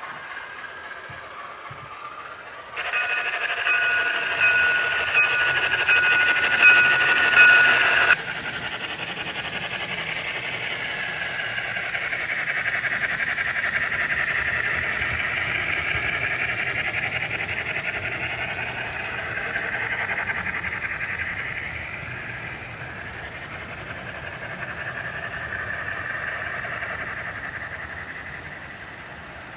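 HO scale model trains running on the layout. About three seconds in, a steady two-tone sound starts suddenly and holds for about five seconds before cutting off, then a wavering running sound continues.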